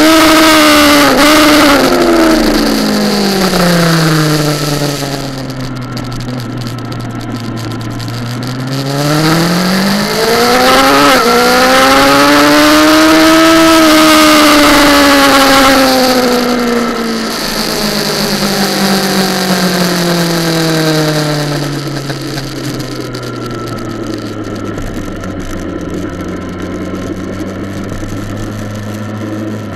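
Kawasaki ZX-10R inline-four engine. The revs drop steeply under braking, with two short blips as they fall, then climb hard in second gear and fall away again, running low and steady for the last several seconds. Wind rush over the onboard microphone rises and falls with the speed.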